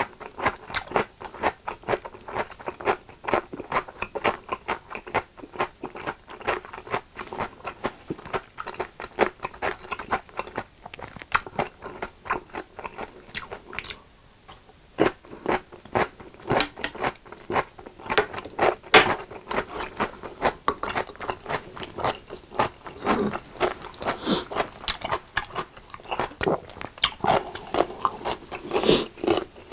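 Crisp whole pickles being bitten and chewed, many crunches in quick succession with wet chewing between them, with a short pause about halfway.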